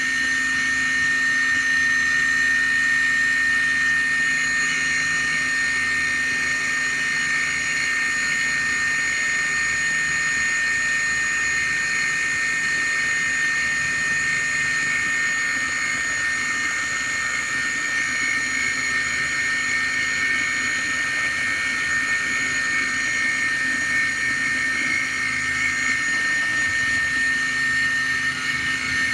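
Small brushless motor on an electronic speed controller running at a steady speed, spinning a shaft-coupled RC airplane outrunner motor used as a generator: a steady high-pitched whine with a lower hum beneath it.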